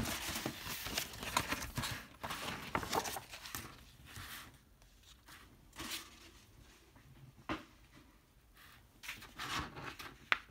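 Rolled paper poster being unrolled and flattened by hand: paper rustling and crinkling, busiest in the first couple of seconds, then scattered short crackles.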